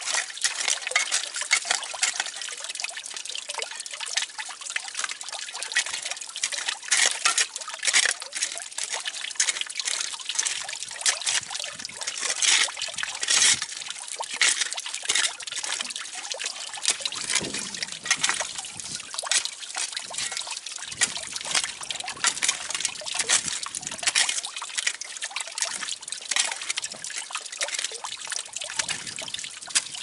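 Water trickling and splashing steadily, a dense, irregular patter of small splashes.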